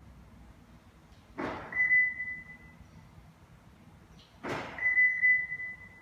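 Hollywood Siren Plus electronic sound-effect unit playing its 'Arrow 3' effect twice, about three seconds apart: each time a short whoosh followed by a steady high ringing tone lasting about a second.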